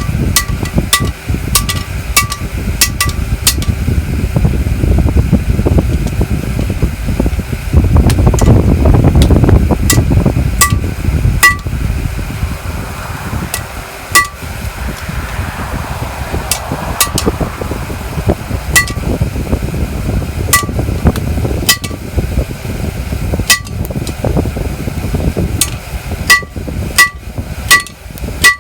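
Hand hammer striking hot iron on a railroad-track anvil, each blow with a short metallic ring: a quick run of strikes at the start, then single blows a second or more apart, and another quick run near the end, over a steady low rumble.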